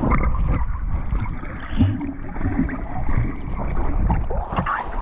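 Sea water washing around a camera held at the surface as it dips in and out of the water, with a low rumble and small knocks.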